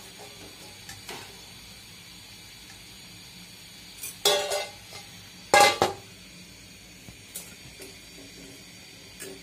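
Oil sizzling steadily in a steel wok as flower pitha fry. Twice, about four and five and a half seconds in, a metal spatula clangs against steel cookware, each strike ringing briefly as the fried pitha are lifted out into a stainless steel bowl.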